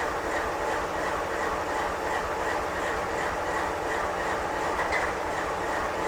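Double-stack intermodal freight train's well cars rolling past, a steady noise of steel wheels on rail with faint regular clicks.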